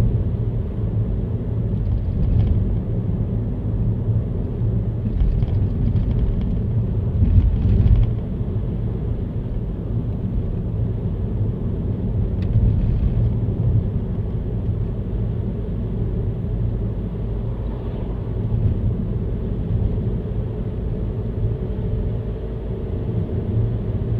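Car driving: a steady engine and tyre rumble with a few brief bumps, and a faint rising whine near the end.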